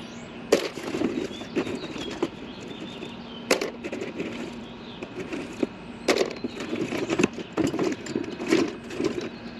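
Rummaging: irregular sharp knocks and clatter with rustling in between, as more clips are dug out.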